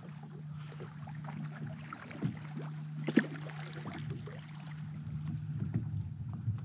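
Small knocks and handling sounds on a fishing kayak, with one sharper knock about three seconds in, over a steady low hum that drops out briefly about two seconds in.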